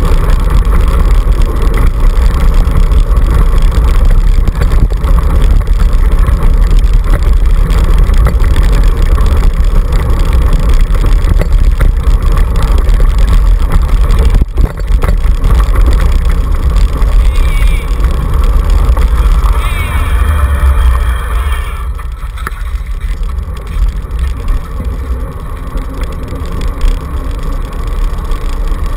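Steady low rumble of wind buffeting a handlebar-mounted camera and the wheels of a dog-pulled kick scooter rolling over a dirt trail at speed, with a single sharp knock about halfway through. It eases somewhat over the last several seconds.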